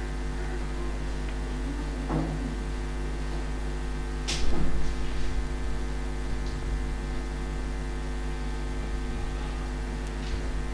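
Steady electrical mains hum, a low buzz with evenly spaced overtones. A short louder noise of about half a second comes in a little over four seconds in.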